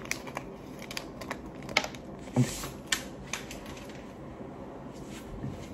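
Wrappers and parts of a COVID-19 antigen home test kit being torn open and handled: scattered crinkles and small clicks, the loudest about two to three seconds in.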